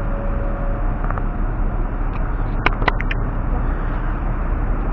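Steady road-traffic noise, with a quick cluster of three or four sharp clicks about two and a half seconds in.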